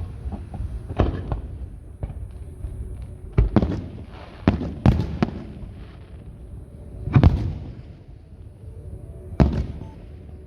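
Aerial fireworks bursting: a series of sharp booms, some in quick succession, the loudest about seven seconds in with a low rumbling tail.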